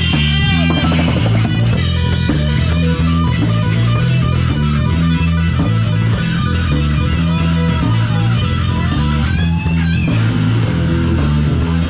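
Live rock music: electric guitar playing a wavering lead line over a steady bass guitar pattern and drums.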